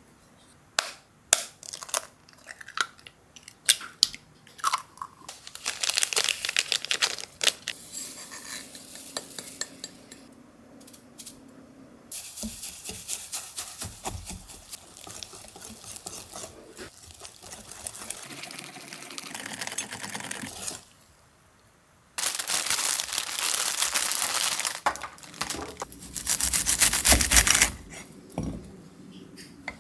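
Cooking preparation sounds: utensils clicking against dishes and bowls, with long stretches of stirring or mixing.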